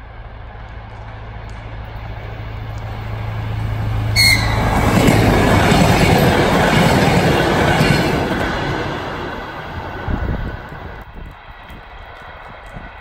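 DR1Am diesel multiple unit approaching with its diesel engine running as a steady low drone that grows louder, then passing close with loud rolling noise from the wheels and cars. A short sharp sound comes about four seconds in, as the train reaches the spot. The noise fades away over a few seconds, and it drops to a quieter background about eleven seconds in.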